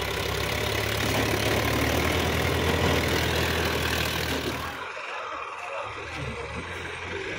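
Sonalika DI 745 III tractor's three-cylinder diesel engine running steadily, close by; the sound drops off suddenly about five seconds in and the engine carries on fainter.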